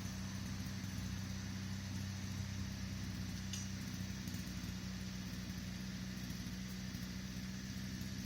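An engine idling steadily at an even pitch, with a single faint click about three and a half seconds in.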